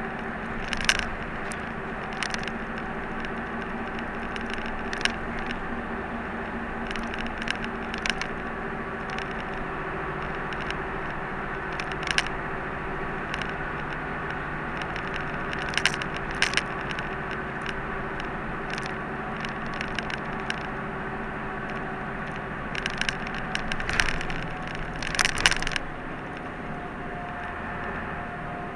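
Inside a moving route bus: steady engine hum and road noise, the engine's pitched drone fading about a third of the way in. Sharp clicks and rattles from the cabin fittings come through at intervals, several together near the end.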